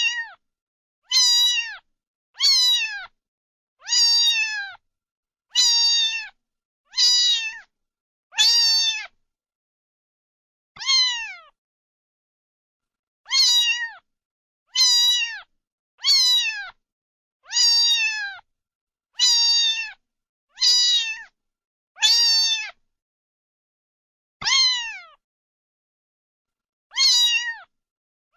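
Kitten meowing over and over: high, short meows that each fall in pitch, about one every second and a half with a few longer pauses, with silence in between.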